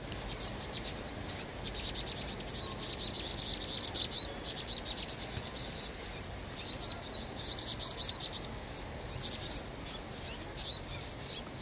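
A flock of vinous-throated parrotbills giving a dense run of rapid, high, thin alarm calls, several a second, that briefly thins about four seconds in. These are the birds' distress calls while a Eurasian jay attacks them.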